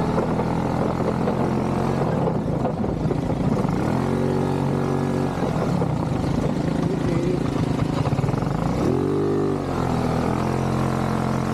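ATV engine running under way, its note shifting up and down with the throttle, with a brief rise and fall about nine seconds in.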